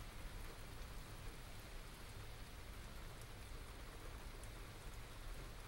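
Steady rain falling during a small thunderstorm, with a few sharper drips ticking now and then, recorded on binaural microphones.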